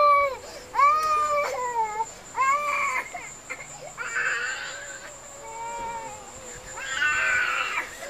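A toddler crying in a run of high, drawn-out wails, each about a second long with short breaks between. The crying of a small boy trapped down a sump pump drain, a sign that he is conscious and breathing. A faint steady high-pitched tone sounds underneath.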